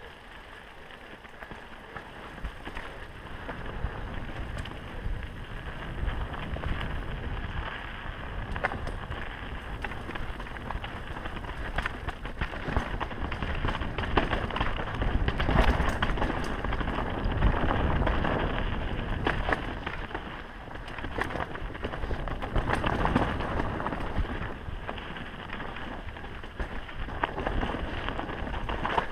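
Mountain bike riding fast down a rocky dirt singletrack: tyres rolling and crunching over dirt and stones and the bike rattling over bumps, with wind rushing over the microphone. It grows louder and rougher through the middle, over the rockier stretches.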